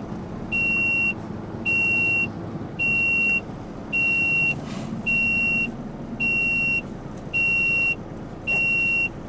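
Electronic warning beeper sounding a steady high beep about once a second, over the low hum of the truck's diesel engine.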